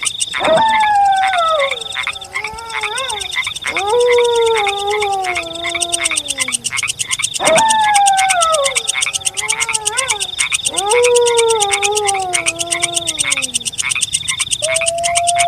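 Wolf howls: four long calls, each rising quickly and then sliding down in pitch, about one every three and a half seconds. Near the end a new howl starts, held on one pitch. Under them runs a steady, fast-pulsing high chirring.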